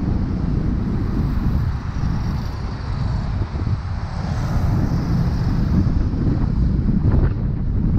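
Wind buffeting the microphone of a moving bicycle, mixed with cars and motorcycles passing on the avenue on both sides. Passing traffic swells about halfway through, and there is a brief click near the end.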